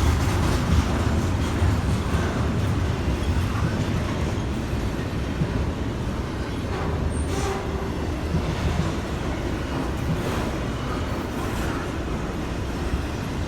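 Intermodal freight train rolling past with a steady low rumble of wheels on rail and a couple of sharp clicks in the middle, slowly getting quieter.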